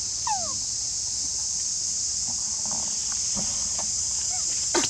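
Steady high-pitched drone of insects in the surrounding vegetation. A short squeak falls in pitch about a third of a second in, and a few soft short sounds and a sharper one near the end are heard.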